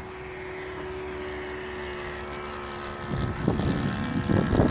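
Engine of a radio-controlled scale model airplane running steadily in flight, a constant propeller drone. From about three seconds in, wind buffets the microphone in loud low gusts.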